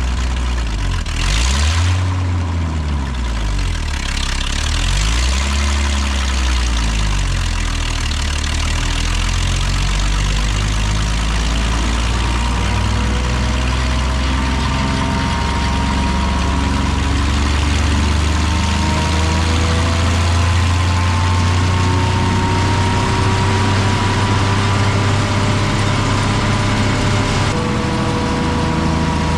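Vermeer 1600A woodchipper engine running on a makeshift replacement governor belt. Its speed swings up and down twice in the first several seconds, then steadies and slowly climbs.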